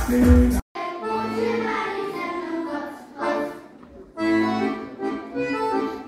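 Dance music with a heavy bass beat cuts off abruptly under a second in; after a brief gap, an accordion plays a folk tune while a group of children sing.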